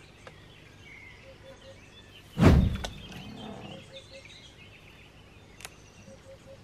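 A large soft-plastic catfish lure hits the river with one loud, heavy splash about two and a half seconds in. Around it, birds chirp faintly and a low three-note call repeats several times.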